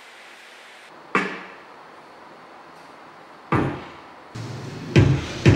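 Sharp percussive hits, each with a ringing decay: one about a second in, another about two and a half seconds later, then quicker, louder hits joined by a low pitched tone near the end, over a steady low hiss.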